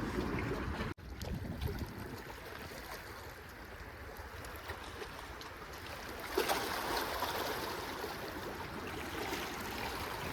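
Outdoor water-side ambience: wind rumbling on the microphone over moving water, with a louder rush of noise around six seconds in. The sound cuts out completely for an instant about a second in.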